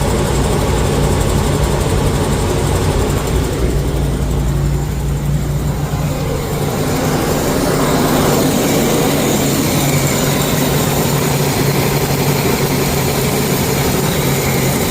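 Motorhome engine running steadily at idle, with a steady low hum under a broad mechanical noise.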